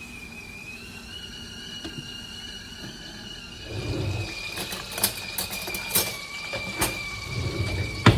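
Clinks, knocks and handling noises of kitchen utensils and dishes during food preparation, starting about halfway through, with a sharp clink near the end. A steady high-pitched whine runs underneath.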